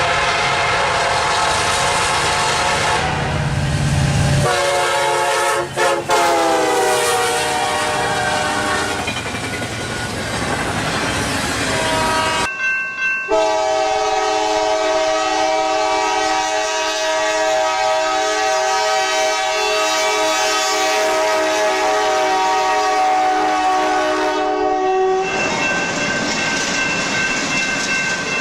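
Several locomotive air horns sounding one after another, each a held chord of several notes. In one, about five seconds in, the chord drops in pitch as the train goes by. Train rumble runs under the first horn.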